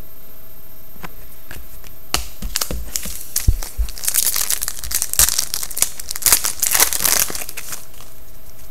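A hockey trading-card pack's wrapper being torn open and crinkled by hand. A few scattered handling clicks come first, then from about four seconds in there are some three seconds of dense crinkling, which stop fairly suddenly.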